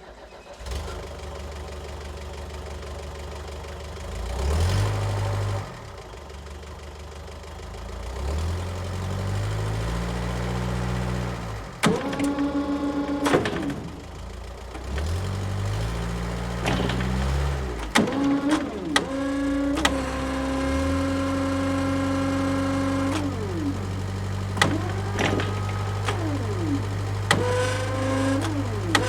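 Forklift engine running and revving up several times, with a long held rev near the end. A steady whine rises and falls with the revs, and sharp clicks and clanks come through over the engine.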